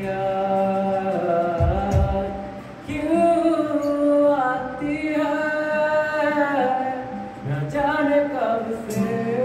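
A man singing a slow Hindi song in long held notes, accompanied by a strummed acoustic guitar.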